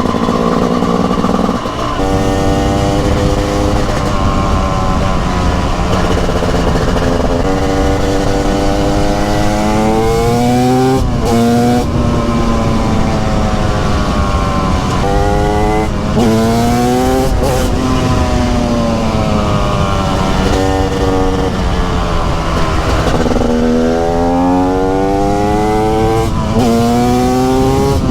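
TM SMR 300 two-stroke single-cylinder supermoto engine under hard riding: the pitch climbs steadily as it revs out, then drops sharply at each gear change, over and over.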